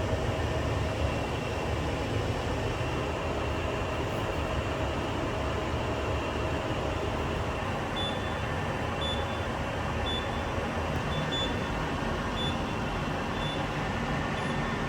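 Steady workshop machinery hum and rumble. From about halfway through, short high-pitched beeps repeat every second or so.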